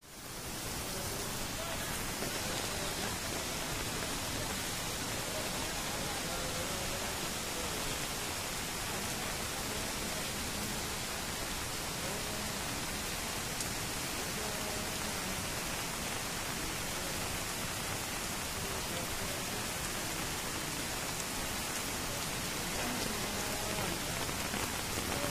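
Steady rushing noise of a swollen, fast-flowing flash-flood torrent of muddy water sweeping past after a cloudburst.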